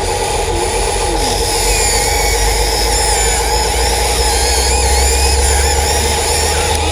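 Excavator running steadily, a constant engine hum with a deep rumble that swells a little midway.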